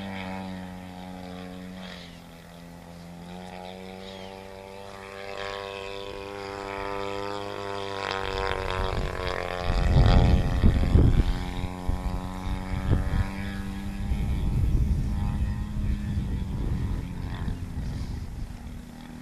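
Radio-controlled Ultimate aerobatic biplane's 50 cc two-stroke petrol engine running in flight, its pitch rising and falling as it manoeuvres. From about eight seconds in, gusts of low rumble come in over it, loudest around ten to eleven seconds.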